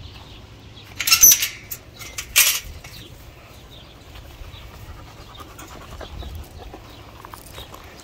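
Close-up animal breathing: two short, loud huffs about a second and a half apart, then faint panting.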